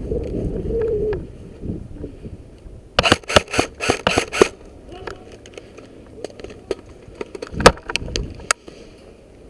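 Airsoft guns firing: a quick run of about seven sharp shots about three seconds in, and a few single shots near the end. A voice calls out at the start.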